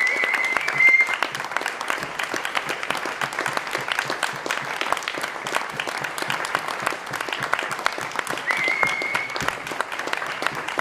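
Audience applauding steadily. A high whistle rises and holds for about a second near the start, and comes again about eight and a half seconds in.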